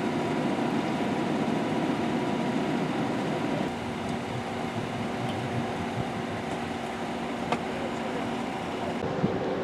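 Construction machinery at a concrete pour, its engine running steadily with a low drone and a few steady tones. The drone drops slightly a few seconds in, and there is a single short click later on.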